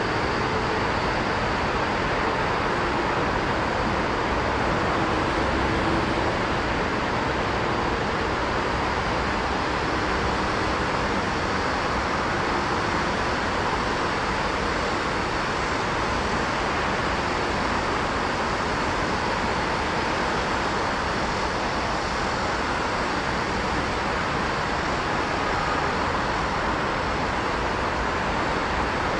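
Steady city road-traffic noise, an even, unchanging hum with no single vehicle or train passing standing out.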